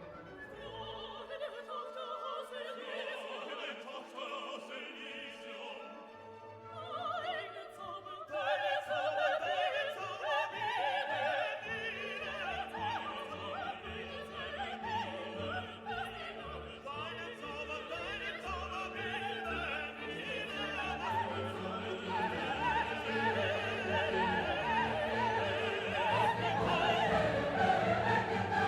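Classical background music: an orchestra with operatic singing that grows fuller and louder after about eight seconds.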